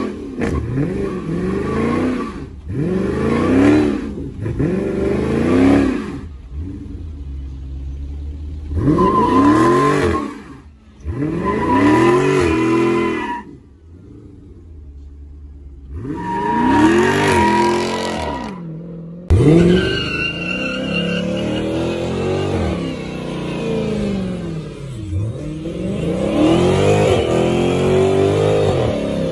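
Dodge Charger Daytona 392's 6.4-litre HEMI V8 revved hard again and again in short rising-and-falling blips while spinning its rear tyres in a smoky burnout, with brief lulls between runs. From about two-thirds through, the revving and tyre noise run on more continuously.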